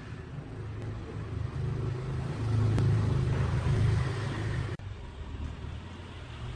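Heavy machinery running with a steady low rumble that swells in the middle, then drops off abruptly a little before the end and carries on more quietly.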